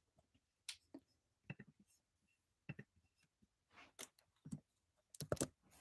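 Faint, irregular clicking from working a computer, scattered through the few seconds with a quick cluster near the end.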